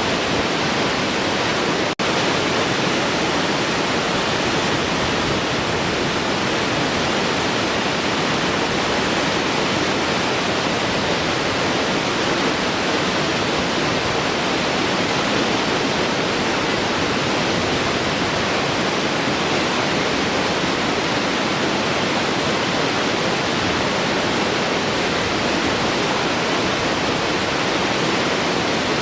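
Large waterfall pouring: a steady, dense rush of falling water, with a split-second dropout about two seconds in.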